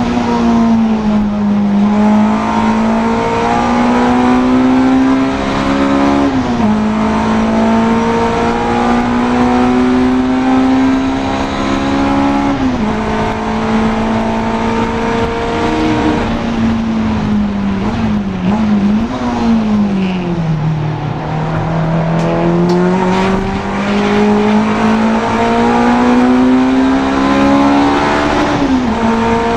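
Honda Integra DC2's four-cylinder engine at racing pace, its pitch climbing through each gear with sharp drops at upshifts about six and thirteen seconds in. Around eighteen to twenty seconds it brakes and downshifts with quick throttle blips, then climbs again to one more upshift near the end.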